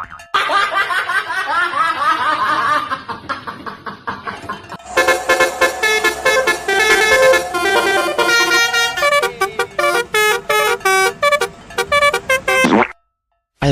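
A Basuri-style multi-tone 'telolet' bus horn plays rapid melodic sequences of notes. It starts with wavering, gliding tones, then moves into fast stepped note patterns from about five seconds in. It cuts off abruptly near the end.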